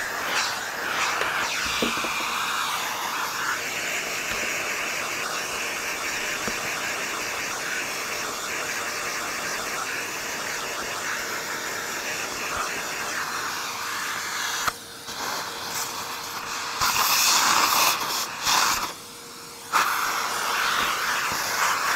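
A vacuum cleaner running, its suction rushing steadily as the nozzle is worked over dusty plastic parts. The sound dips briefly about 15 s in, is loudest a little later, and cuts out for about a second near 19 s before it resumes.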